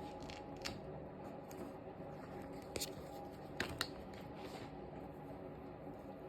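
Kinetic sand being cut and handled: a few short, crisp clicks and scrapes, about a second in and again around three and four seconds in, over a steady low hum.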